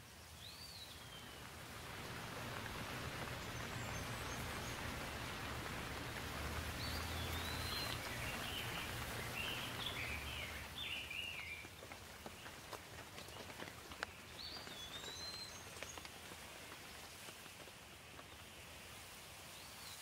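Steady rain falling on leaves and foliage. A small bird chirps through it: one call near the start, a quick run of chirps around the middle, and another call about three-quarters of the way through. A low hum sits under the first half.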